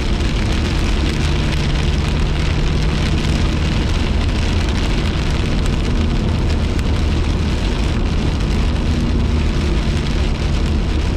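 Rain pelting a moving car's windshield and body, heard inside the cabin over a steady hum of tyres and engine.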